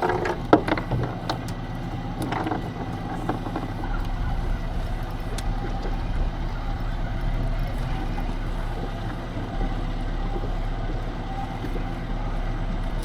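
A boat engine running steadily at idle under a light wash of water and wind. There are a few sharp clicks and knocks in the first seconds, and a deeper rumble grows about four seconds in.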